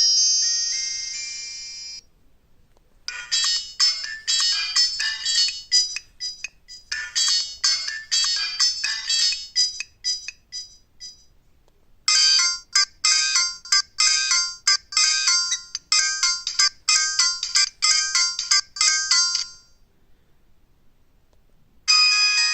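Alcatel OT-1016D mobile phone playing its built-in ringtones through its small speaker: a held tone fades out, then after a brief silence a fast melody of short, high electronic notes plays for two long stretches with a short break between. Another ringtone starts near the end.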